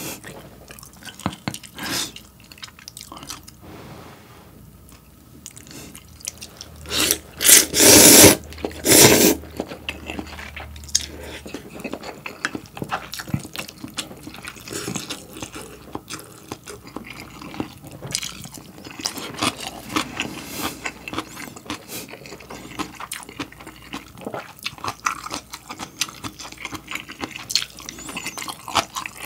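Close-miked eating of ramyeon noodles and kimchi. About seven seconds in come three loud, wet slurps of noodles. Otherwise there is steady chewing, with small wet clicks and crunches.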